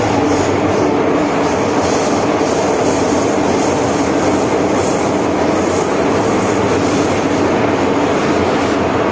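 MTR Island Line train running through a tunnel, heard from inside the passenger car as a steady, even noise.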